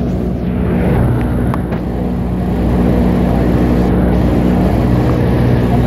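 Cessna 152's four-cylinder Lycoming O-235 engine and propeller droning steadily in cruise flight, heard inside the cabin over a constant rush of airflow.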